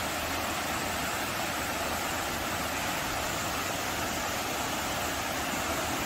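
Mountain stream rushing down a smooth granite rock slab in a chute of white water, a steady even rush of water.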